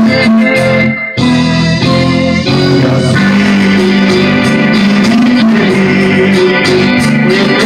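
Instrumental break of a song's backing music, with no singing, cutting out briefly about a second in.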